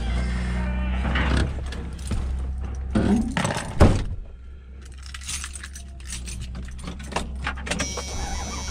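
A pickup truck's door and cab as someone climbs in: clinking and rattling, then the door slamming shut about four seconds in, the loudest sound. A steady low engine hum runs underneath and becomes fainter once the door is shut.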